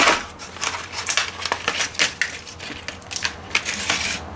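Handling of a Helicoil thread-repair kit and its packaging: a run of sharp clicks, rattles and rustling, loudest right at the start.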